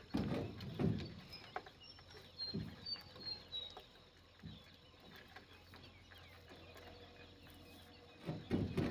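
Dull knocks and thuds from a small boat as a pile of collapsible mesh traps is handled and shifted aboard: a cluster in the first second, a few single knocks, and another cluster near the end. Faint short high bird chirps come between about one and a half and three and a half seconds in.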